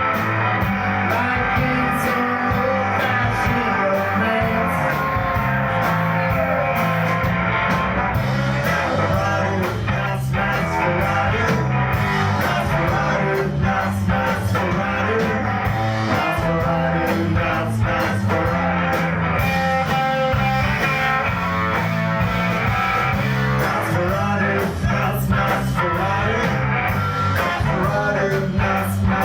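Live rock band playing: guitars and drums with a strong bass line, and a voice singing over them.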